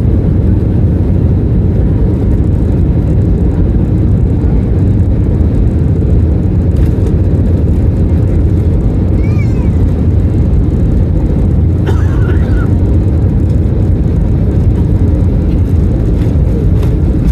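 Airbus A321 cabin noise: a loud, steady low rumble of engines and airflow heard from a passenger seat, with a couple of faint brief higher sounds in the middle.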